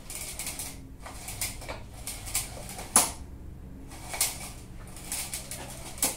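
Recoil pull-starter on a 139 cc overhead-valve lawn mower engine being yanked again and again, the cord rasping out in short strokes about once a second with a sharp click about three seconds in. The engine turns over but does not catch.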